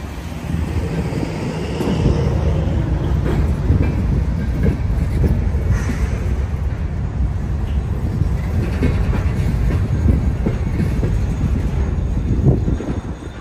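Freight train hopper cars rolling past, with a steady low rumble and repeated clicking clatter of wheels over the rail joints; the sound eases a little near the end.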